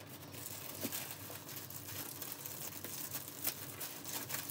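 Soft crinkling and rustling of paper wrapping as a sticker-sealed paper sleeve is opened and unfolded from around a handbag.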